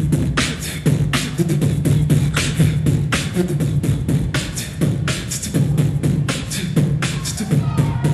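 Loud rhythmic beat: sharp hits several times a second over a low, steady bass hum.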